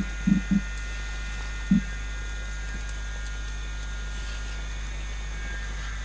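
A steady low hum with faint steady high tones over it, and four short dull thumps in the first two seconds, three close together at the start and one a little later.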